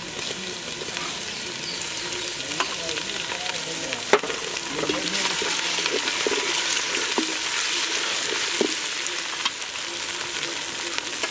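Sliced onions, green chillies and freshly added ginger-garlic paste frying in oil in a large aluminium pot, sizzling steadily and growing louder over the first few seconds as a ladle stirs them. A few sharp knocks of the ladle against the pot stand out.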